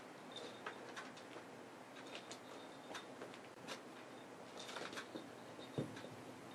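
Small bell on a cat's collar tinkling in short, irregular jingles as the cat squirms and paws while lying on its back, with a dull thump about six seconds in as it rolls over.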